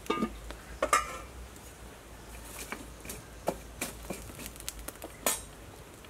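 A metal pot lid clanks twice onto a large cooking pot within the first second, the second clank the loudest and ringing briefly. Scattered sharp pops and crackles follow from the wood fire burning under the pot.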